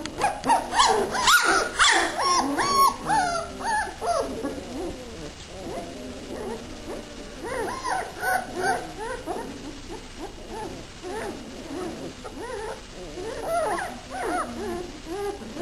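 A litter of German Shorthaired Pointer puppies whimpering and yipping, many short high calls overlapping one another, loudest and densest in the first few seconds.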